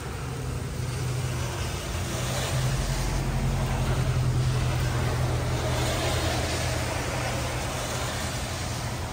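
A car passing on a rain-soaked road, its tyres hissing through the water with a low engine hum, over steady rain. The sound swells to its loudest about four seconds in and then fades slowly.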